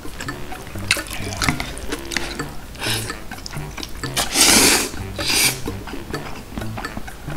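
Wet slurping of Buldak spicy fried noodles pulled up with chopsticks: a short slurp about three seconds in, a long loud one a little past the middle and a shorter one right after, with small mouth and chopstick clicks between.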